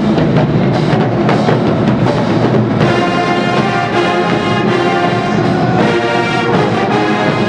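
College marching band playing loudly: drum and brass hits for the first few seconds, then the brass section comes in with full held chords about three seconds in.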